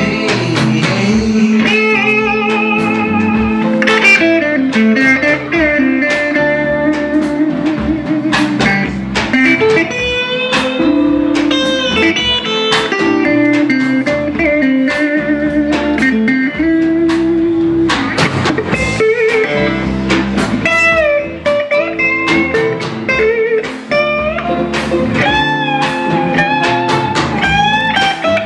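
Live electric blues band playing a slow blues ballad, with a lead electric guitar playing bent, sliding notes over the band.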